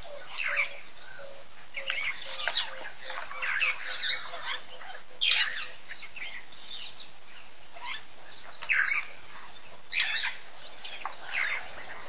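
Outdoor bird calls: short chirps and squawky notes come irregularly, a few each second. A softer, evenly repeated lower note dies away in the first two seconds.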